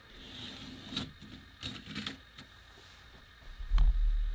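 Light plastic clicks and rattles from a K'nex roller coaster model as a train is moved by hand on the track, followed by a low thump about three and a half seconds in.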